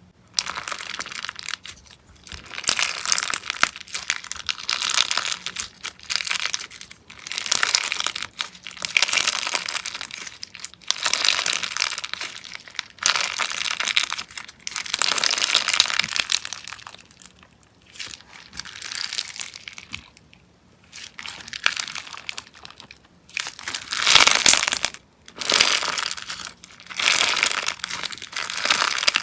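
Slime being squeezed and kneaded by hand, crackling and crinkling in repeated bursts of a second or two each.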